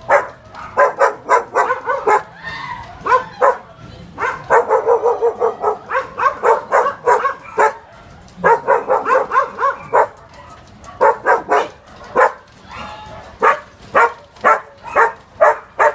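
Dog barking in rapid runs of short, sharp barks, several a second, with brief pauses between runs, set off by the shaking of a major earthquake.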